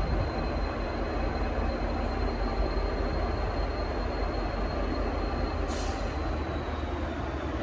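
V/Line N class diesel-electric locomotive (EMD two-stroke V12) running steadily at the platform, a low rumble with a thin high whine over it. A short hiss of air comes about six seconds in.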